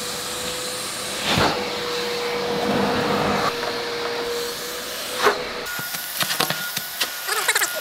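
Shop vacuum running steadily as its floor nozzle is worked over the car's floor carpet, with a couple of knocks as the nozzle bumps about. A little after five seconds the sound turns thinner, leaving a higher whine with a run of clicks and rattles.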